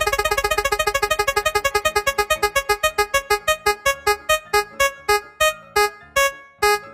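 Spinning-wheel game sound effect: a run of short electronic piano-like notes that starts very fast and slows steadily as the wheel winds down, the last one just before the end.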